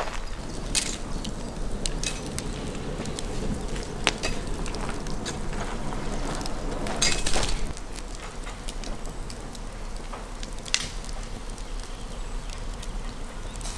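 Wood fire and embers crackling, with scattered sharp pops over a steady hiss. About seven seconds in there is a louder scraping rush as a shovel is worked through the coals.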